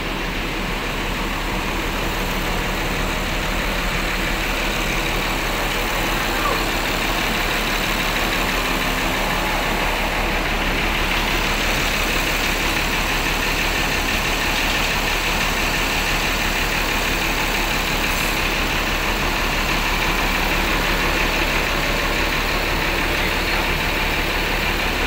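Intercity bus diesel engine idling steadily.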